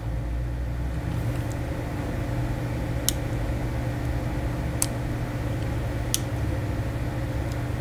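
Steady low electrical hum, with four single sharp clicks spaced a second or two apart.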